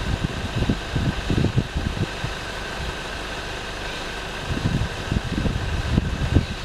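Wind buffeting the microphone in irregular gusts during the first two seconds and again from about four and a half seconds in. Beneath it is a steady hum from a distant off-road truck's engine.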